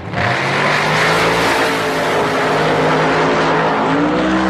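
Two V8 drag racing cars launching side by side and running down the quarter mile at full throttle. The loud engine noise comes in sharply just after the start and holds steady.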